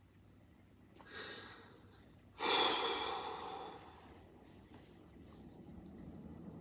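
A man breathing heavily while upset: a short breath in about a second in, then a long, heavy sigh out about two and a half seconds in that fades away. Near the end, a faint rustle of cloth as he wipes his eyes.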